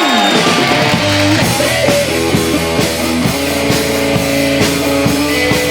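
Live rock band playing an instrumental intro: electric guitar and drum kit with a steady beat.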